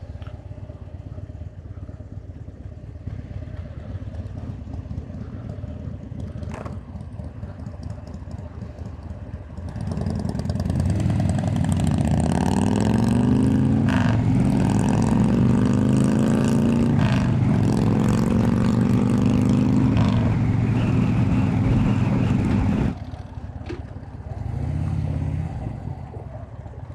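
2017 Harley-Davidson Dyna Street Bob's Twin Cam V-twin, with Vance & Hines Straight Shots slip-on exhausts, idling at a stop, then pulling away about ten seconds in. It accelerates through the gears, its pitch climbing and dropping back at each upshift, and the throttle eases off near the end.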